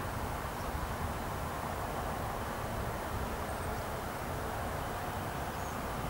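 Boeing 747-400 on final approach, heard from far off: a steady, even rush from its four jet engines over a low rumble.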